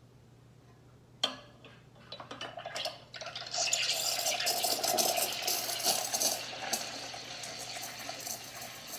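Ascaso Dream espresso machine's steam wand steaming milk in a stainless pitcher: a knock about a second in, some sputtering, then a loud steady hiss from about three and a half seconds on that eases slightly near the end.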